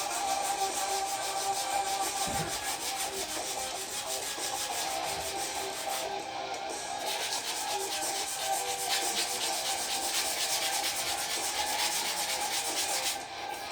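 Steady, continuous sanding on a metal bicycle frame, abrasive rubbing the old paint.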